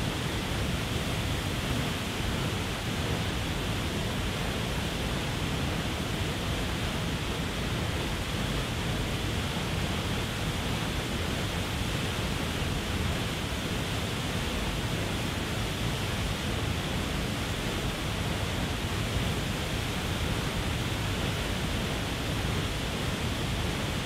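Waterfall pouring over a rock ledge: a steady, unbroken rush of falling water.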